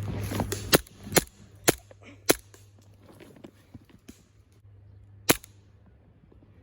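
CO2 blowback airsoft pistol firing five sharp shots: four in quick succession about half a second apart, then one more about three seconds later.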